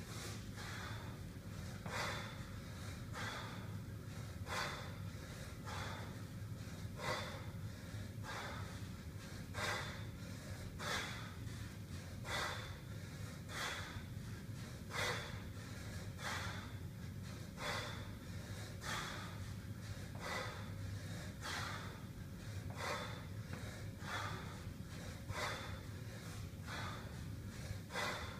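Sharp, forceful breaths of a man doing continuous kettlebell cleans with a 32 kg bell: quick exhales and inhales, repeating every second or so, often in pairs, in time with the swing and rack. A steady low hum runs underneath.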